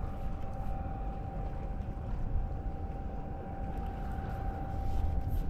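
Wind rumbling on the microphone by open sea, with a faint steady hum.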